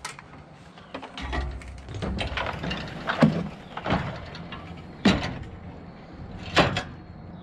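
Plastic leaf blower knocking and clattering against a metal trailer rack as it is lifted and set into place, a handful of sharp knocks at uneven intervals.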